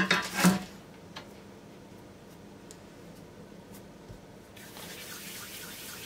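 Quiet handling of soft dough: a few faint clicks, then, about two-thirds in, a soft steady rustle of a dough ball being rolled between the palms.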